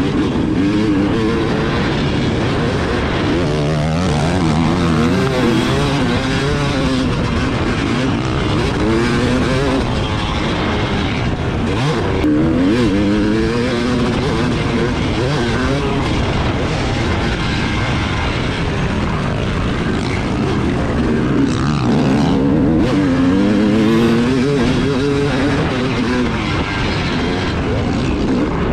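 Yamaha 250cc two-stroke motocross bike engine being ridden hard, revving up and dropping back again and again as the rider works the throttle and shifts through the track.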